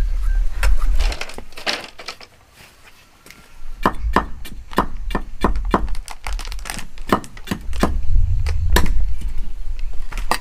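A cleaver blade striking a wooden block in a steady run of sharp knocks, a little over two a second, starting about four seconds in after a short lull.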